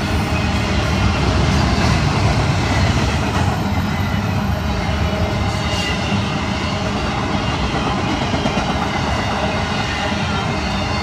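Florida East Coast Railway intermodal freight cars rolling past: steady, continuous noise of steel wheels running on the rails.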